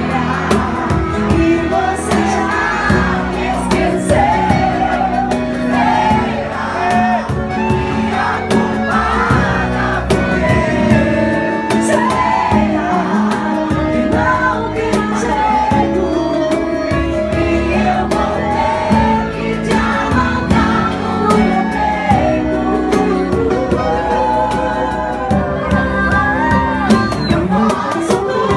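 A woman singing into a microphone over a live band playing drums and guitar, a continuous song with a steady beat.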